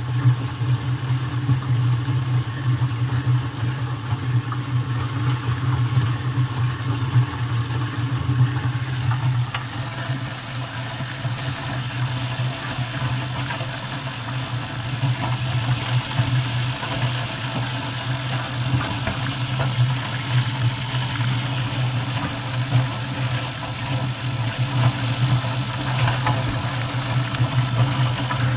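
Corn-shelling machine running with a steady low hum and a rattling haze over it, dipping slightly in level partway through.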